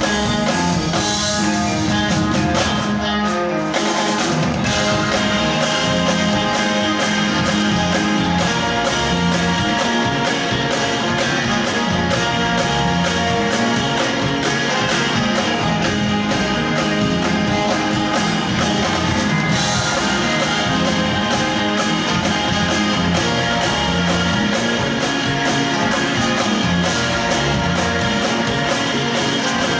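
Live rock band playing an instrumental song intro: electric guitar over a drum kit keeping a steady beat.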